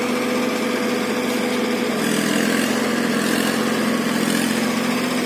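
Mahindra 585 DI tractor's four-cylinder diesel engine idling steadily.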